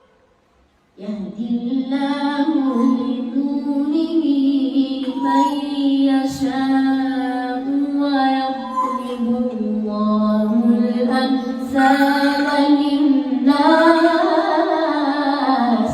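Melodic Quran recitation by one voice in long, ornamented held notes, starting about a second in after a short pause.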